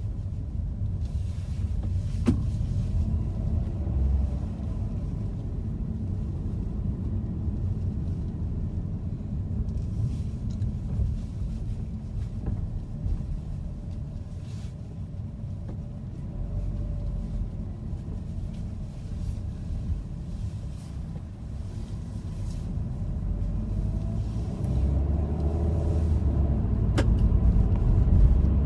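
Car engine and road noise heard from inside the cabin while driving, a steady low rumble that grows louder near the end. A sharp click comes a couple of seconds in and another near the end.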